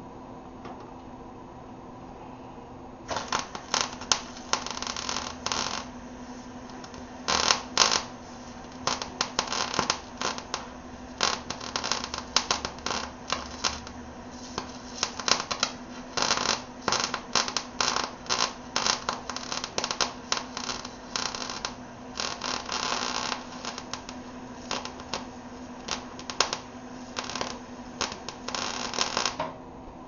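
Arc welding crackling in many short bursts, each a second or less with a few longer runs, starting about three seconds in, as a steel subframe connector is welded to the car's underside. A steady low hum runs underneath.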